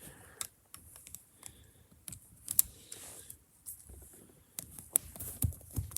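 Plastic Lego Technic pieces clicking and tapping as they are handled and pressed together, in irregular sharp clicks.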